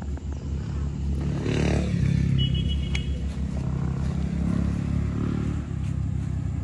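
Off-road 4x4's engine revving under load with a constant low rumble, loudest from about two seconds in and dropping away shortly before the end.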